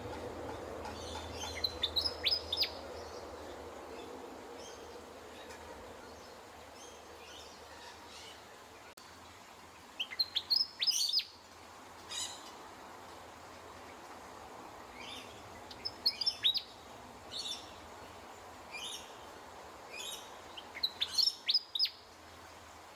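Willie wagtail singing: short phrases of quick, high chirping notes, repeated every few seconds, over a faint low background rumble.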